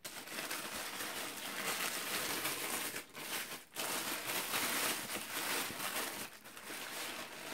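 Tissue paper wrapping in a cardboard shoe box rustling as hands unfold it from around a pair of shoes. The rustling is continuous, with two short pauses about three seconds in.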